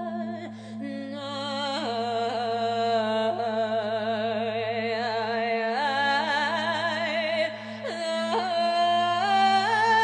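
Background music: a high voice singing a slow melody with heavy vibrato over a steady low drone.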